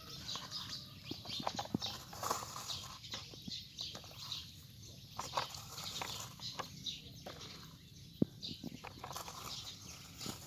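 Scraping and scattered short clicks of a plastic toy excavator being worked by hand through loose sandy dirt.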